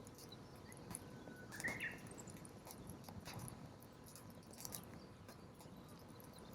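Campfire burning, with faint scattered crackles and pops from the burning firewood over a low steady background. A brief high chirp comes about one and a half seconds in.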